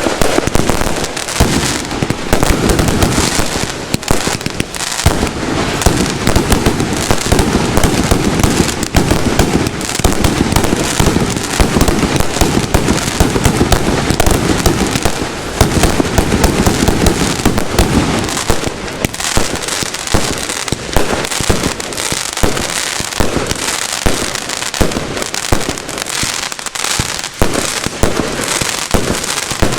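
Fireworks going off in a dense, continuous barrage of crackles and bangs, thinning to more separate bangs about two-thirds of the way through.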